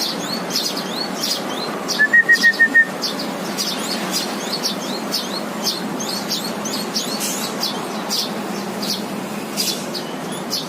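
Eurasian tree sparrows chirping continuously, many short high chirps overlapping. About two seconds in, a quick run of six loud, evenly spaced high notes stands out above them.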